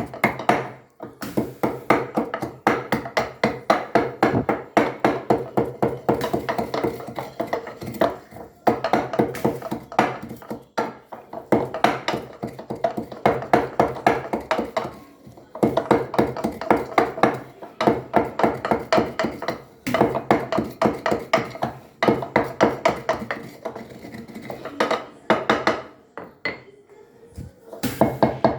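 Pestle pounding roasted green cardamom pods and cloves in a mortar: quick, steady strikes, several a second, with a ringing tone, in runs broken by short pauses.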